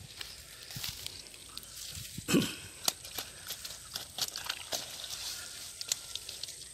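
Dry grass and reeds rustling and crackling close by, with scattered sharp clicks and one louder knock about two seconds in.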